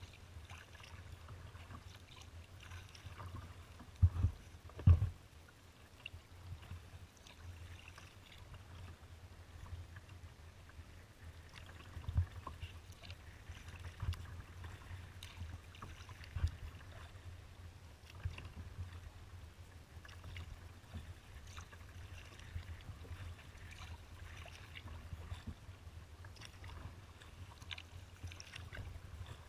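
Kayak paddling on open water: light splashing and dripping from the paddle strokes over a steady low rumble. Two sharp, loud knocks come about four and five seconds in, and a few fainter knocks follow later.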